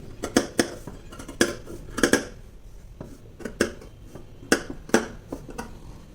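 Tailoring scissors snipping through several layers of blouse fabric: sharp, irregularly spaced metallic clicks, about a dozen in all.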